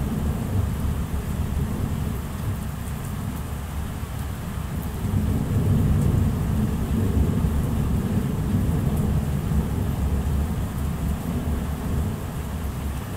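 Thunder rumbling over steady rain, the low rumble swelling about five seconds in and slowly easing off.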